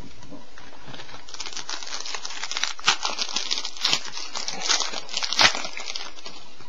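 Crinkling and crackling of a trading-card pack wrapper being handled and opened, starting about a second in, with a few sharper crackles midway.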